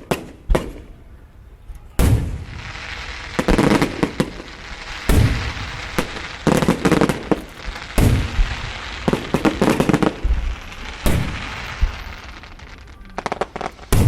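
Fireworks shells bursting overhead: a string of sharp bangs, one every second or two, with crackling between them and a quick run of pops near the end.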